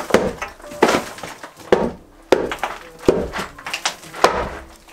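About six heavy blows of a long-handled demolition tool into an old half-timbered wall's plaster and masonry infill, roughly one a second, each followed by debris crumbling and falling.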